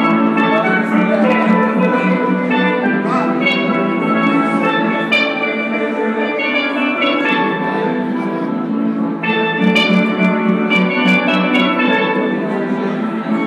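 A steel drum band playing a tune, several steelpans ringing out notes together in a quick, steady rhythm.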